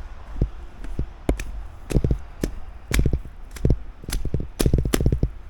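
Footsteps crunching in snow at a walking pace, about two steps a second, each with a low thump.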